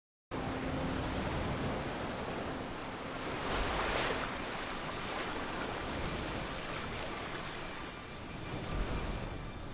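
Ocean surf washing onto a sandy beach. It starts suddenly after a moment of silence and swells as a wave breaks about four seconds in.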